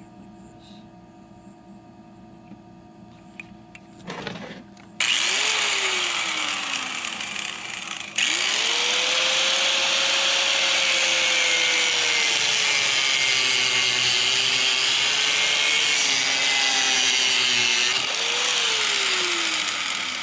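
Corded angle grinder cutting PVC pipe. It is switched on about five seconds in and stops for a moment about three seconds later. It then runs steadily for about ten seconds, its motor pitch sagging under the cut, and winds down near the end.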